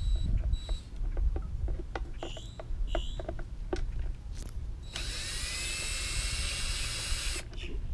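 Cordless drill/driver backing bolts out of the lid of a Lectrasan marine toilet treatment unit. It runs in short bursts with clicks between them, then in one longer run of about two and a half seconds, its whine rising as it spins up.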